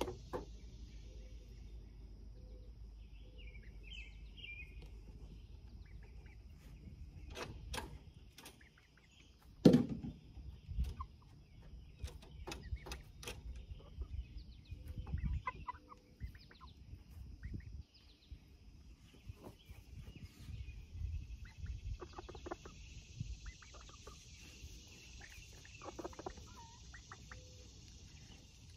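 Chickens clucking in scattered short calls, with small taps and one loud knock about ten seconds in.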